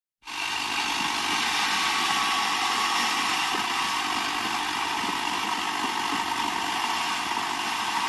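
Small stand-mounted circular saw running steadily while branches are cut into firewood on it.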